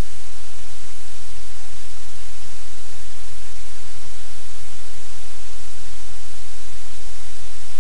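Loud, steady static-like hiss that does not change, with a strong low hum beneath it.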